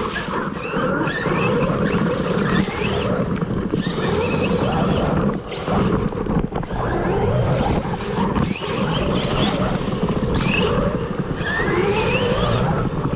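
ARRMA Talion 6S RC car's brushless motor whining up and down in pitch again and again as it is throttled hard, over a steady rushing noise.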